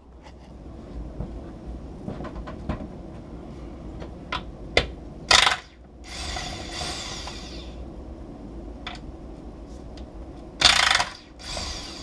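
Cordless drill-driver undoing the bolts that hold an outboard's lower cowling. It runs in two short loud bursts about five seconds apart, each followed by a softer whirr, with light clicks and knocks of handling in between.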